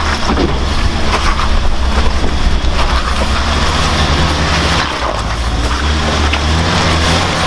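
Off-road military-type vehicle's engine running hard under load, its note shifting up and down in the second half, over a broad rushing noise of the vehicle working through wet terrain.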